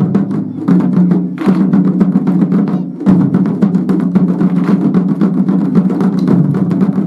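Wadaiko (Japanese taiko drums) played in a fast, dense rhythm. There are many sharp strikes over a deep, ringing drum tone, with a brief break about three seconds in.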